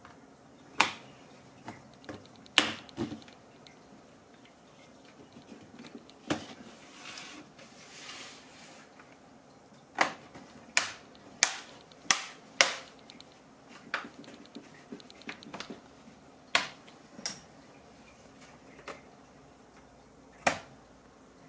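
Plastic retaining clips of an HP 15-ay laptop's case snapping free as a guitar pick pries it open: about fifteen sharp clicks at irregular intervals, with a short stretch of scraping near the middle.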